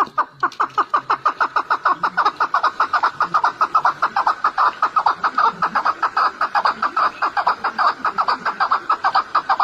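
A bird calling in a fast, steady series of short, sharp notes, about seven a second, kept up without a break.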